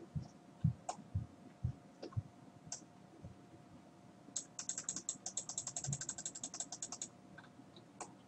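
Computer mouse and desk clicks: scattered single clicks and soft knocks. About four seconds in comes a fast, even run of clicks, roughly a dozen a second, lasting nearly three seconds.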